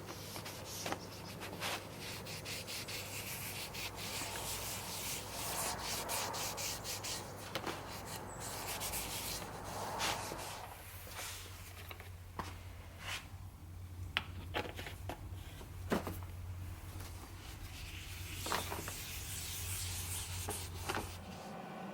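Sanding of a wooden cutting board: sandpaper rubbing and scratching across the wood, with many small ticks and knocks. A steady low hum runs underneath and stops shortly before the end.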